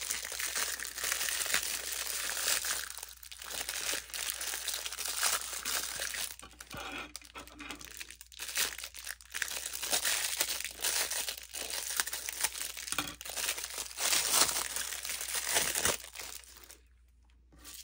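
Thin clear plastic packaging bag crinkling as a silicone mold is handled and unwrapped from it, in stretches broken by short pauses, stopping near the end.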